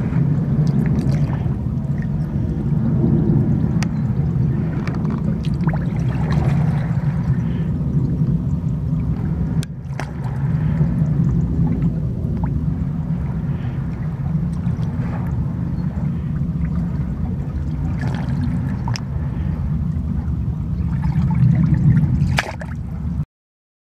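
Seawater washing and trickling around shoreline rocks: a steady low rumble with scattered small clicks and drips, cutting off suddenly near the end.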